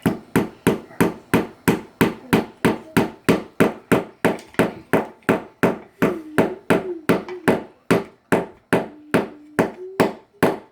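Hammer driving a nail into wood with quick, even blows, about three a second, to fix a perch in place.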